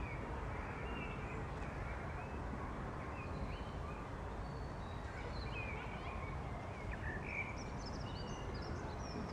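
Outdoor ambience: a steady low background rumble, with small birds chirping now and then, more busily in the second half.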